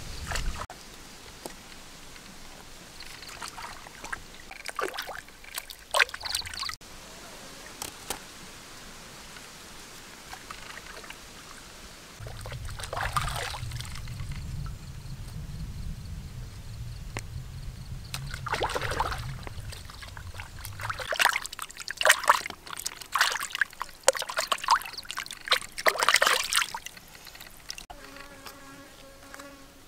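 A fly buzzing close by for several seconds, over a faint trickle of stream water, with scattered short rustles and scrapes as vegetables and fish are handled in a woven basket.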